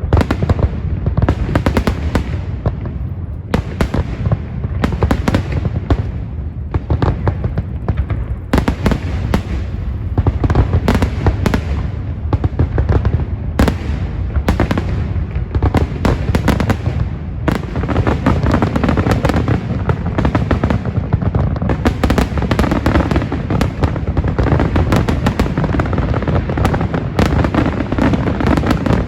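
Fourth of July fireworks going off: a rapid, dense series of sharp bangs and crackles over a continuous low rumble.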